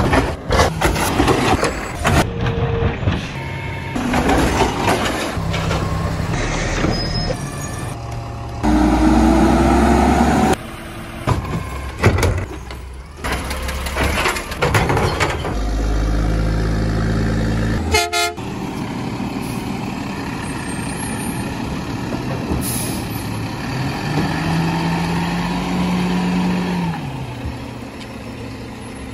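A string of short garbage-truck clips that cut suddenly from one to the next: diesel engines running and revving, hydraulic lift and packer noise, and air brake hisses.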